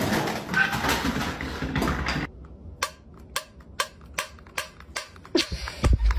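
About two seconds of mixed noise, then a run of sharp metallic clicks, about three a second, from a finger working the ring-pull tab of a small metal tin, ending in a low thump.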